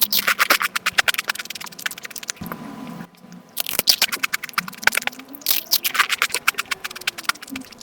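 Eating sounds from a mukbang of Nutella pancake crepes, sped up tenfold so the chewing and mouth noises run together into rapid crackling clicks. They come in several dense bursts with short lulls between them.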